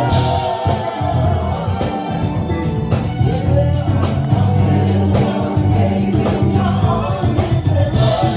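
A woman singing live into a microphone, backed by a live band with bass-heavy accompaniment and keyboard, amplified through the room's PA.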